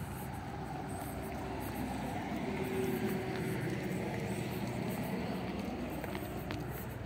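Road traffic: a vehicle passing on the road, its noise swelling to the loudest about three seconds in and then easing off, over a steady low traffic rumble.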